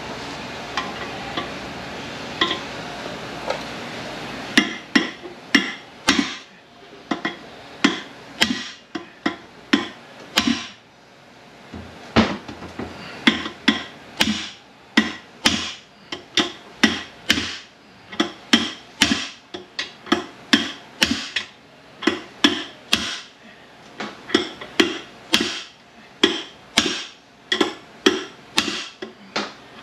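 Hammer blows on a long metal drift set into a Ford MT82 six-speed manual transmission case, driving out a part that will not come out by hand. The sharp metallic strikes start about four seconds in and come at about two a second.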